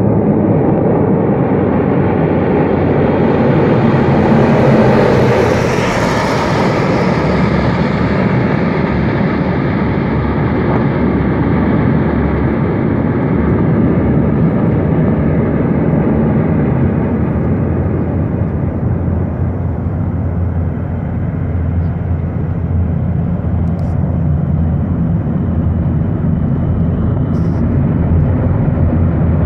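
Antonov An-22 Antei's four turboprop engines and contra-rotating propellers running loud and steady as the heavy transport rolls along a dirt runway, a low droning hum over a rushing noise. The sound swells and turns hissier about five seconds in, then settles back.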